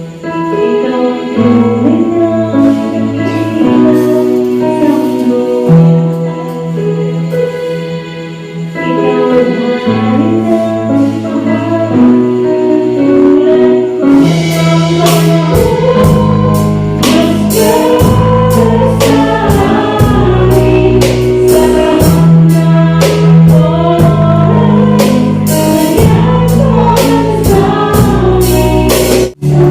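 Church worship band rehearsing a gospel song: singers over sustained bass and chords, with the drums coming in about halfway through.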